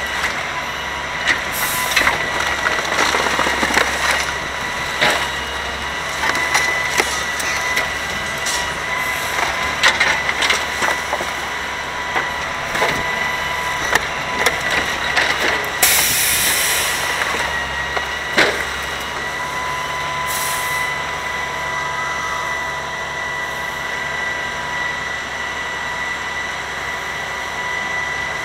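Grapple truck's hydraulic claw crushing and gathering a pile of bulk trash, with wood and debris cracking and snapping over the truck's running diesel engine and a steady high whine. A brief hiss about sixteen seconds in, and the cracking stops a couple of seconds later as the load is lifted.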